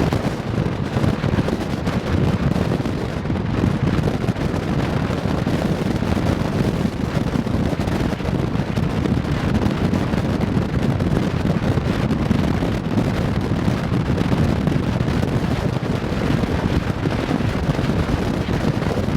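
Wind buffeting the microphone: a loud, steady rumble with no distinct tones.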